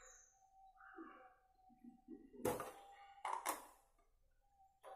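A few sharp knocks about halfway through, with a faint steady tone and indistinct soft sounds around them.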